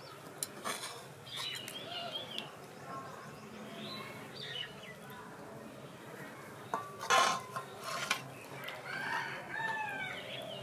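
Steel ladle clinking and scraping against an aluminium cooking pot and steel rice plates as fish curry is served. A few light knocks come near the start and the loudest clatter about seven seconds in. Birds call throughout in the background.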